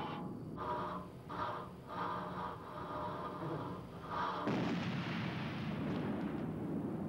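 An anti-personnel mine detonating under a standard military boot in a blast test, about four and a half seconds in: a sudden blast followed by a long rushing noise that slowly fades.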